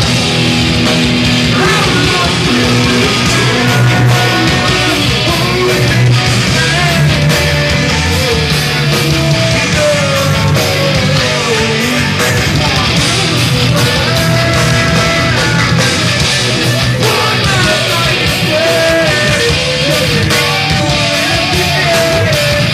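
Heavy rock band playing live: distorted electric guitars over drums, with a lead melody line weaving through.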